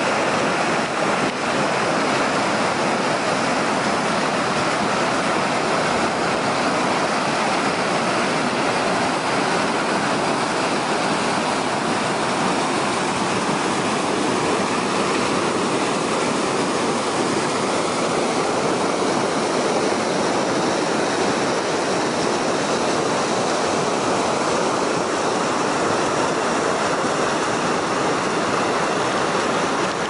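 Mountain stream rushing steeply down over rocks as a cascade of white water: a steady, unbroken rush of splashing water.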